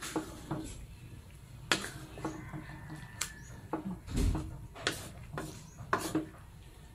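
Wooden spatula knocking and scraping against a wok as beef pieces are stirred, a string of irregular sharp clicks with a duller thump about four seconds in.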